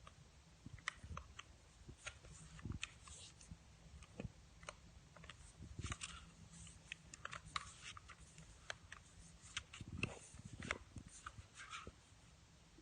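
Faint, irregular small clicks and taps, with a few slightly louder knocks about ten seconds in.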